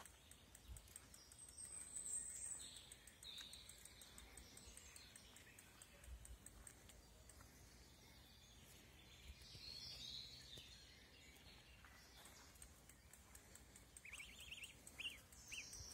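Faint, high peeping of a goose gosling: a few scattered calls, then a quick run of falling peeps near the end.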